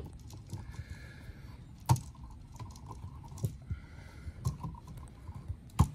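Small scattered clicks and rattles of wires and a plastic duplex outlet being handled, as stripped wires are pushed into the receptacle's push-in quick-connect holes. Two sharper clicks stand out, about two seconds in and near the end.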